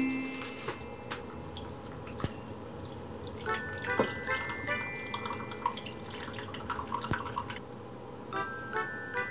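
Brewing coffee trickling and dripping through a paper filter in a wire pour-over dripper into a mug, with a few soft clicks.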